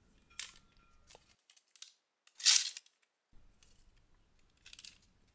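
A few short rustles and scrapes from handling an Apple USB-C power adapter and its plastic wrapping. The loudest is a brief hiss-like rustle about halfway through.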